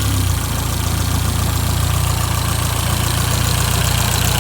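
BMW E30's M10 four-cylinder engine idling, settling into a steady low rumble shortly after starting, running on freshly fitted engine mountings.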